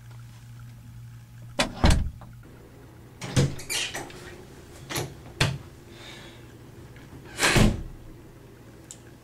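A door being handled: a string of knocks and thumps as the knob is worked and the door opens and closes, the loudest about two seconds in and again near the end.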